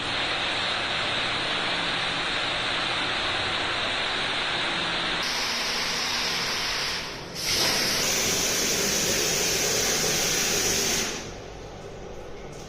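Water spraying or rushing from a pipe, a steady hissing rush. It shifts abruptly about 7 seconds in and drops much quieter about 11 seconds in.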